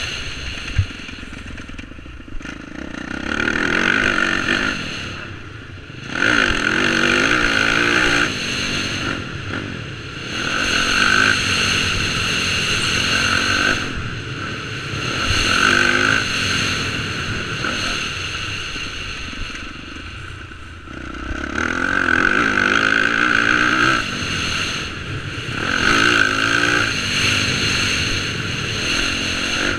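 Motocross dirt bike engine, heard from on board, ridden hard round a track: the throttle opens and closes every few seconds, so the engine swells loud on the straights and drops back between, its revs rising and falling.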